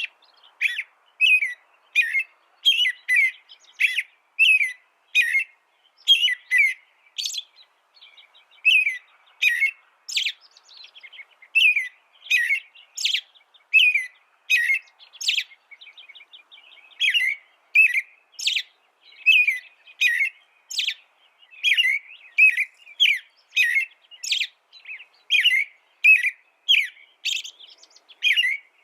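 A small songbird chirping over and over in short, bright notes, about two a second, with a brief pause about halfway through.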